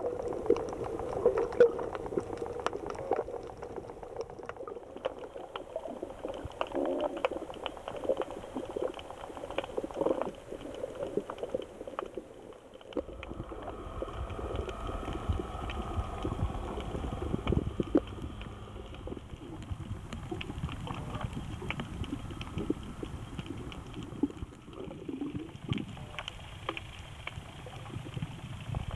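Underwater ambience picked up by a waterproof compact camera held under water off a rocky reef: a dense crackle of many small clicks over a watery hiss. A low rumble joins about halfway through.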